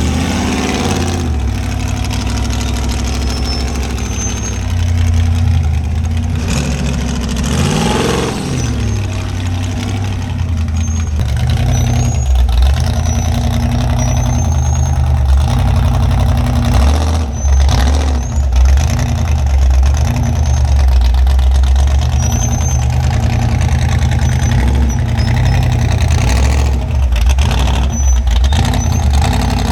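Off-road rock-crawling rig's engine running at low revs, with a brief rev that rises and falls about eight seconds in.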